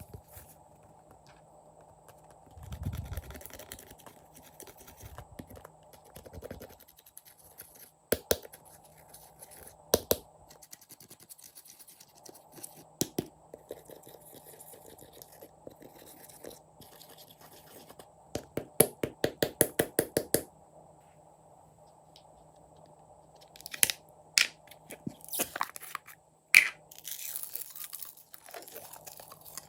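Hands squishing and poking clear slime, making sticky clicks and pops, with a quick run of about a dozen pops about two-thirds of the way in and crackling near the end.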